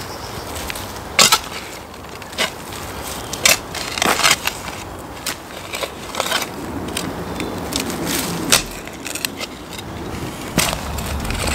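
Metal spade digging into dark, ashy soil: irregular scrapes and crunches as the blade is pushed in and lifted out, roughly once a second.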